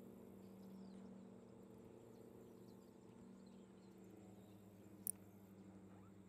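Near silence: a faint, steady low hum, with one brief high chirp about five seconds in.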